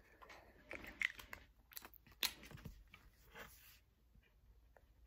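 Faint irregular taps and rustles of paper and a pen being handled on a tabletop, giving way after about four seconds to faint scratching of a pen on paper.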